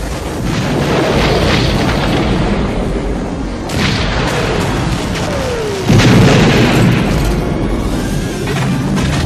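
Movie battle sound effects: a dense rumble of booms and explosions over orchestral music. About six seconds in, a falling tone leads into the loudest blast.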